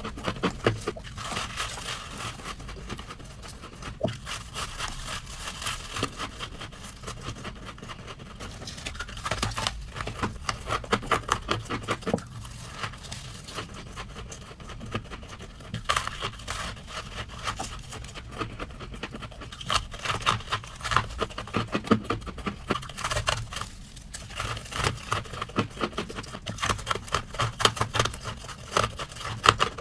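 Freezer frost being scraped off and crunched: repeated clusters of crisp crackling and scraping, each run lasting a second or two.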